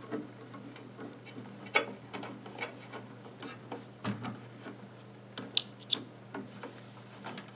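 Small clicks and taps of a replacement fuse being fitted in place of a blown one in a microwave oven, with a few sharper clicks, the sharpest a pair about five and a half seconds in, over a steady low hum.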